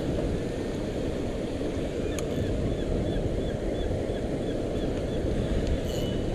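Churning water of a dam's outflow with wind on the microphone, a steady rush. Through the middle, faint squeaks repeat about three times a second as a spinning reel is cranked against a hooked catfish.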